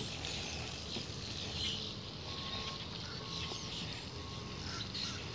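Quiet outdoor background: a steady soft hiss with faint, short whistled bird calls repeating every second or so.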